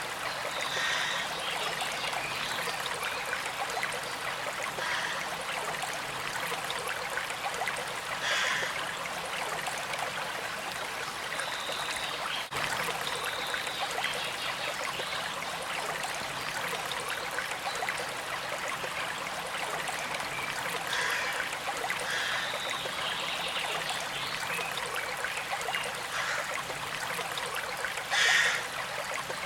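A stream of water running and trickling steadily, with short higher sounds breaking through now and then, the loudest near the end.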